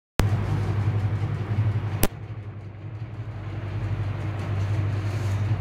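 A steady low hum, starting with a sharp click, with another sharp click about two seconds in, after which it is quieter.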